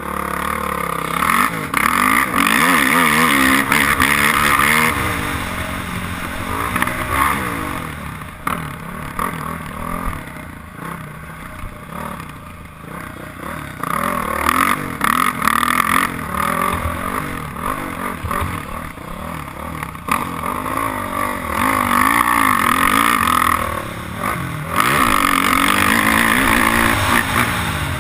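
Dirt bike engine pulling away about a second in, then revving up and down as the rider accelerates, shifts and backs off through the track. Wind rushes over the helmet-mounted microphone.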